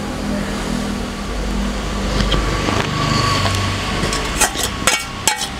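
Batter being mixed by hand in a glass bowl, over a steady background hiss and hum, with a few short sharp wet clicks near the end.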